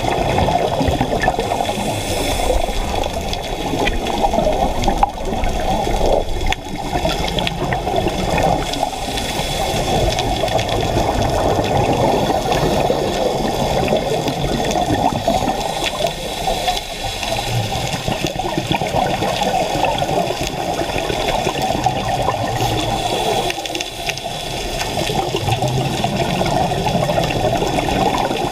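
Underwater sound heard through a dive camera: a steady rushing and bubbling of water from scuba regulators exhausting bubbles.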